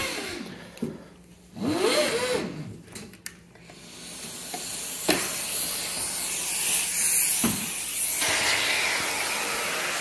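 Central vacuum fading away, then a few sharp knocks as the hose is handled. About four seconds in, the suction rises again and settles into a steady hiss of air rushing through the hose as the hose is plugged into a wall inlet.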